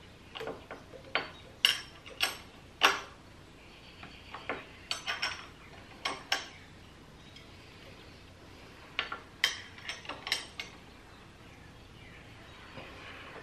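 Hand wrench working the riser bolts: short, irregular runs of sharp metallic clicks and clinks as the bolts are snugged down. There are pauses of a couple of seconds between the runs.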